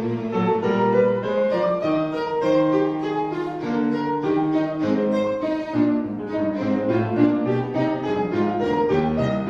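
Instrumental background music in a classical style, with melody lines of held notes that move from pitch to pitch throughout.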